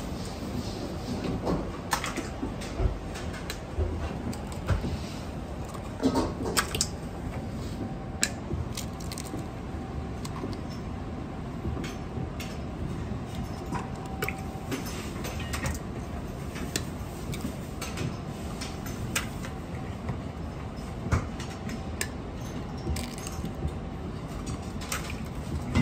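Steady hum of a commercial kitchen with frequent short clinks and taps as eggs are cracked and tipped one after another into a large stainless steel bowl.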